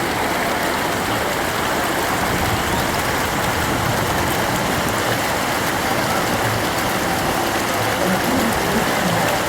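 The River Ganges flowing: a steady, even rush of water.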